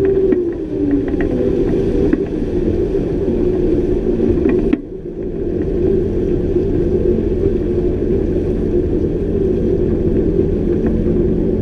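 Twin Honda 225 V6 outboard motors running under way, with hull wash and wind. The engine note falls in pitch about a second in as the throttles come back, then runs steady, with a brief dip in level about five seconds in.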